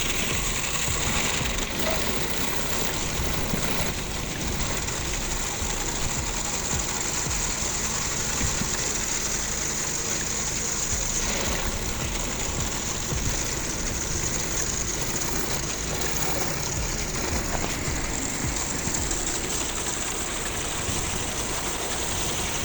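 Pressure washer at work: a steady engine-driven pump running with the continuous hiss of the water jet spraying.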